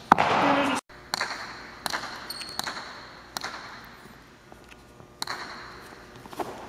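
Jai alai pelota striking the court floor and walls: sharp cracks that echo in the hall, roughly one a second at first, with a louder hit about five seconds in. Just before the first crack, a loud burst of noise cuts off abruptly into a moment of dead silence.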